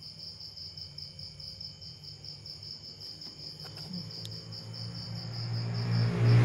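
High-pitched insect chirping in a fast, even pulse. In the last second or two, a low hum with a rushing noise, like a passing engine, grows louder and becomes the loudest sound.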